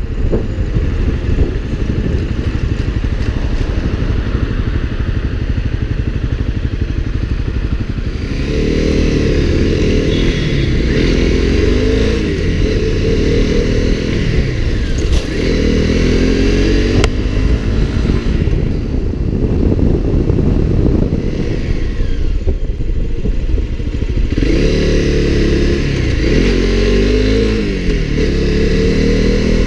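Motorcycle engine running at low road speed with steady wind rush. From about eight seconds in, the engine note rises and falls again and again as the rider accelerates and eases off.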